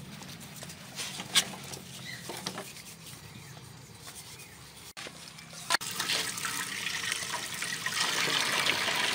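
Water sloshing and trickling as salted whole fish are rubbed and washed by hand in a metal basin, growing louder and busier in the last few seconds.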